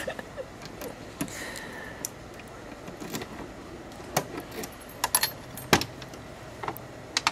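Keys jangling as a key is pushed into and turned in a VAZ (Lada) car's door lock, with a series of sharp metallic clicks from the lock and door latch. The loudest click comes near the end, as the door is opened.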